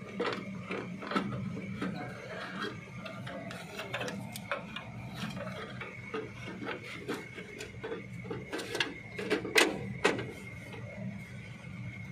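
Irregular clicks, taps and rubbing as hands handle the plastic housing and wiring of a FANUC drive module, the sharpest knocks a little past the middle. Under them runs a steady low electrical hum with a faint high whine.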